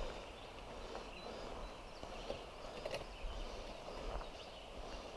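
Quiet outdoor ambience beside a creek: a low steady rumble of wind on the microphone, with scattered faint chirps and a few soft ticks.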